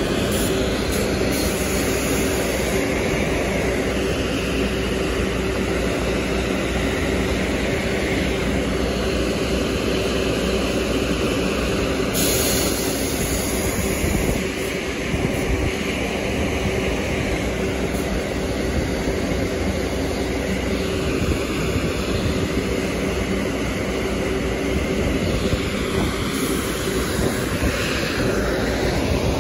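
New York City Subway R62A train on an elevated steel structure: a steady rumble with a constant low hum. A brief high hiss comes about twelve seconds in.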